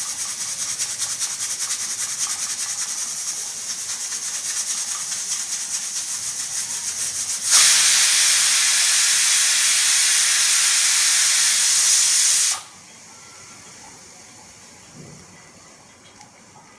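Pressure cooker whistling as steam escapes past its weight valve. It starts as a fast-pulsing hiss for about seven seconds, then becomes a louder steady hiss for about five seconds. That cuts off suddenly, leaving a faint hiss.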